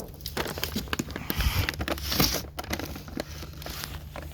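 Cardboard-packaged firework cakes being handled: irregular light knocks, scrapes and crinkling of packaging, over a steady low hum.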